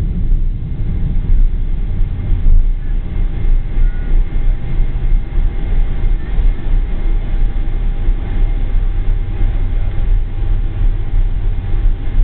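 Boeing 747-400's four Rolls-Royce RB211-524G engines running, heard from inside the cabin: a loud, uneven low rumble with a steady engine whine over it.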